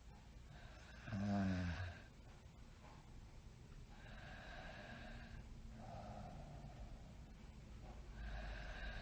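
A person snoring in sleep: one louder, rattling snore about a second in, followed by quieter breaths in and out.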